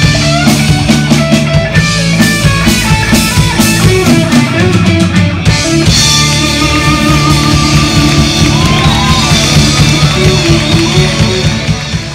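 Live rock band playing electric guitar, bass guitar and drum kit to a steady beat; about six seconds in the beat stops and the band holds one long chord with cymbals ringing over it.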